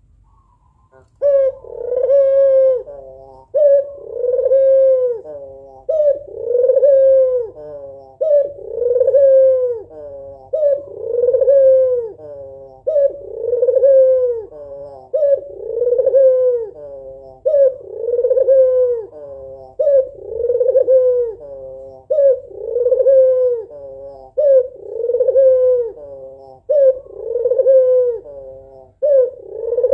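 A white female puter (domestic Barbary dove) cooing repeatedly: a short note then a longer arched coo, about every two and a half seconds, starting about a second in. This is the female's call to summon a male.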